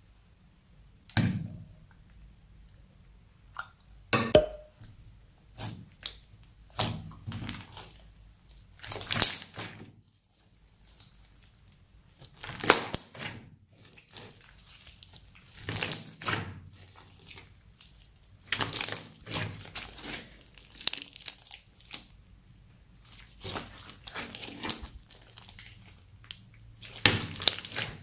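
Thick purple slime with small beads mixed in, squeezed and kneaded by hand: irregular sticky squelches and crackling pops, one burst every second or two.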